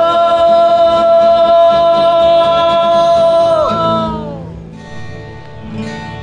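A man singing to his own strummed Yamaha acoustic guitar. He holds one long high note for most of the first four seconds, then lets it slide down and fade, leaving the guitar quieter with a short vocal phrase returning near the end.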